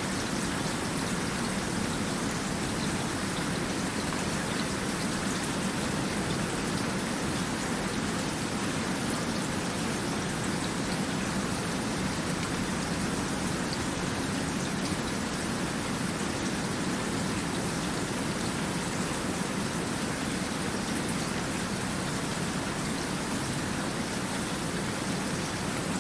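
Steady rain falling on a surface, a constant hiss of drops with scattered small patters and no change in intensity.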